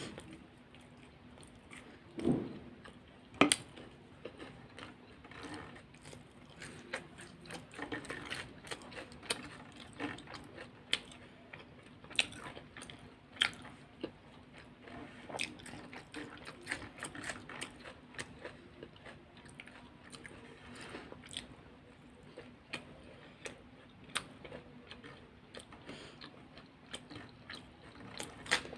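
Close-miked eating: crunchy bites into fried samosas and rolls and raw vegetables, with many small crisp clicks of chewing. There are two louder bites about two and three and a half seconds in.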